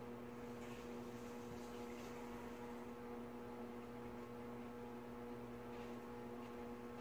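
A faint, steady electrical hum with a low pitch and one overtone, over quiet room tone.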